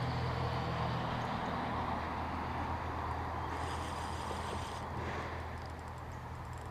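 Boat motor running steadily: a low, even hum with a steady hiss of water and wind over it.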